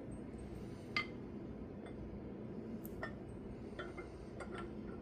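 A few separate light metallic clicks and clinks from steel tools and bolts being handled on the hub, the sharpest about a second in, over a steady low hum.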